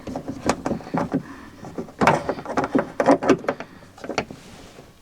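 Parts being handled inside a car's front door as a door check strap is fitted: a run of irregular clicks, knocks and light rattles, with the sharpest knocks about two and three seconds in.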